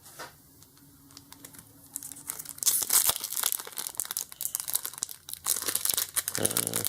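Foil Pokémon card booster pack wrappers crinkling and tearing as packs are ripped open in quick succession, starting about two seconds in.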